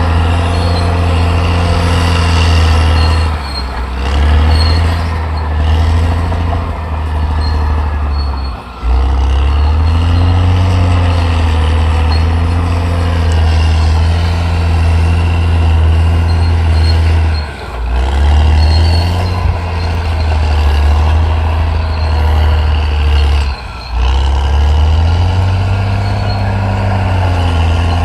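Caterpillar D6R XL bulldozer's diesel engine running under working load, its pitch sagging and recovering as it pushes, with four short drops in level.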